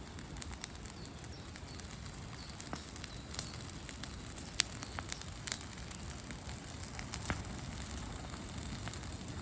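Wood campfire burning: a steady hiss with scattered sharp crackles and pops, the two loudest about halfway through.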